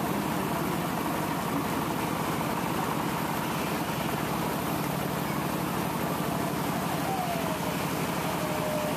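A motor vehicle's engine running steadily as it drives through shallow floodwater on a flooded road, with a constant rushing noise.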